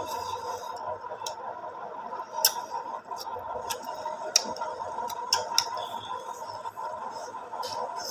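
People chewing pork, with scattered sharp clicks of mouth smacks over a steady background tone.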